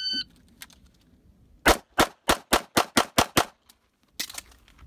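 Electronic shot timer beeps once, then under two seconds later a pistol fires about eight rapid shots in quick succession and stops.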